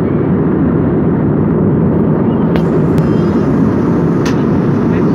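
Steady cabin noise of a jet airliner in flight, a loud even rumble of engines and airflow heard from a window seat. A few sharp clicks come about halfway through and near the end.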